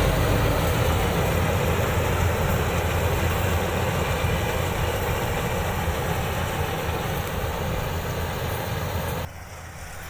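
Iseki rice combine harvester running steadily close by as it cuts a paddy, a dense mechanical noise with a deep rumble, which stops abruptly about nine seconds in.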